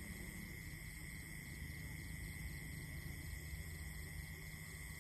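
Steady high-pitched drone of night insects, with a low rumble underneath.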